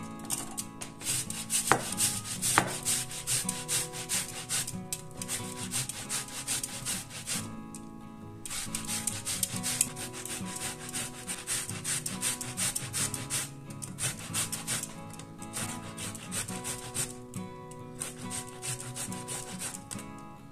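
Peeled ripe tomatoes rubbed against a stainless-steel box grater: rapid rhythmic scraping strokes, broken by a few short pauses. Two sharp clicks come about two seconds in.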